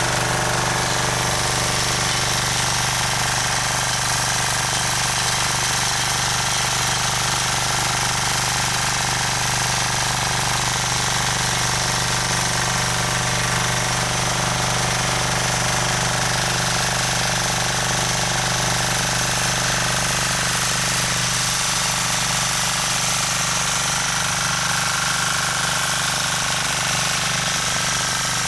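Rotakt walk-behind rotary tiller's small engine running steadily while its tines work the soil.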